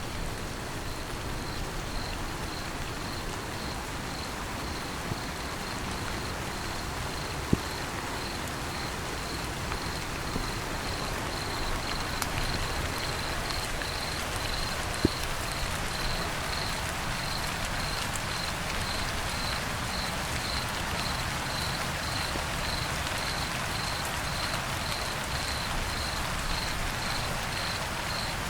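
A cricket chirping in a steady, evenly spaced high-pitched pulse over a continuous hiss of background noise, with a couple of faint clicks.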